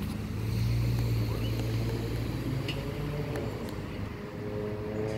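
Ice cream truck's engine running with a steady low hum as the truck pulls away. About four seconds in, a few held pitched tones come in over it.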